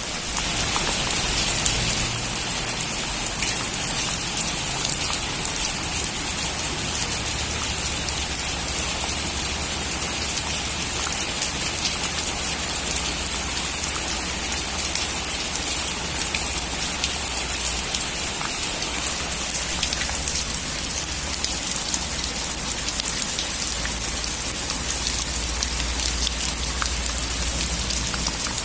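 Heavy rain drumming steadily on a metal roof, a dense hiss of countless drop ticks over a low rumble.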